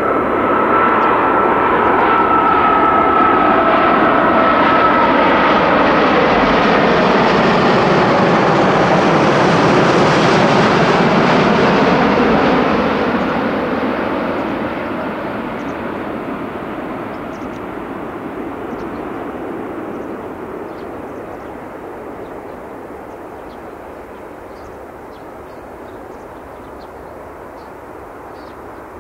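Airbus A380-841 passing low overhead on landing approach, its four Rolls-Royce Trent 970 turbofans giving a loud jet whine that falls in pitch as it passes. From about halfway through, the engine noise fades steadily as the aircraft moves away toward the runway.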